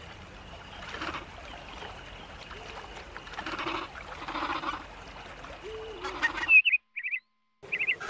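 Short animal calls from a feathered dinosaur, repeating roughly once a second over a faint forest background, with a few short high chirps about six and a half seconds in; then the sound cuts out to near silence.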